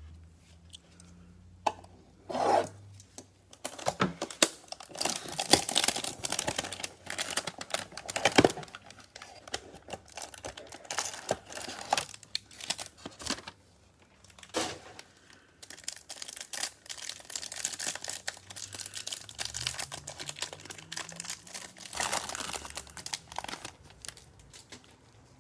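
A cardboard trading-card hanger box being torn open and its cellophane-wrapped stack of cards pulled out and unwrapped: irregular tearing and crinkling with handling scrapes, pausing briefly about halfway through.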